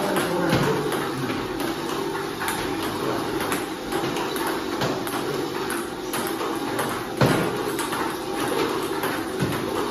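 Table tennis rally against a home-made ball-throwing robot: ping-pong balls clicking off bat and table in a quick, irregular run, the sharpest knock about seven seconds in. A steady low hum runs underneath.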